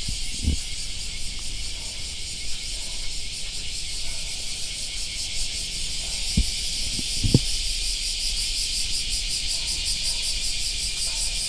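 Steady high-pitched chorus of insects buzzing with a fast pulsing texture, with a few low thumps about half a second in and again three times around six to seven seconds in.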